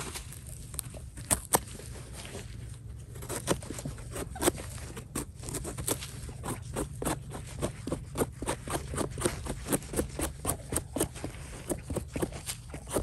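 Small knife scraping and cutting caked soil and debris off the base of a bolete's stem, in short repeated strokes that come faster and closer together from about three seconds in.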